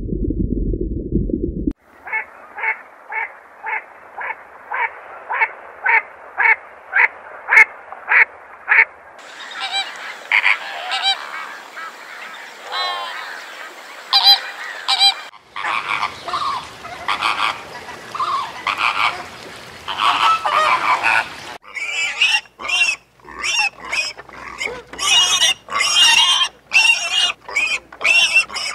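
Geese honking: first one bird calling in an even run of about two honks a second, then a flock honking over one another, across several cut-together clips. A low rumble cuts off just before the honking starts.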